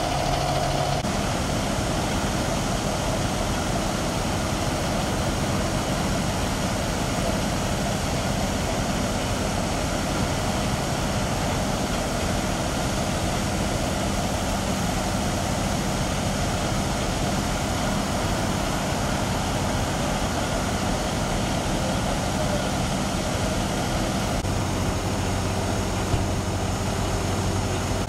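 Fire engine's engine idling steadily with a low, even hum.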